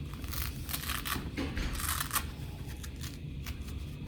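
Fabric tool bag being handled and opened: a few short rasping scrapes in the first two seconds, then scattered light clicks and rustles.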